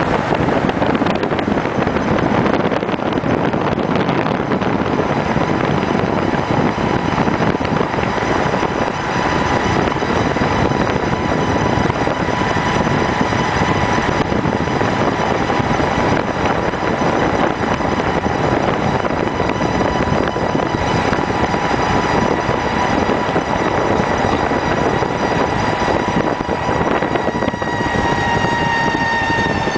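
A steady, high squealing whine from the left rear wheel hub of a Mercedes-Benz W124 E500 Limited at road speed, over road and wind noise. The noise only appears above about 40 km/h, and its pitch follows road speed, sinking slightly near the end.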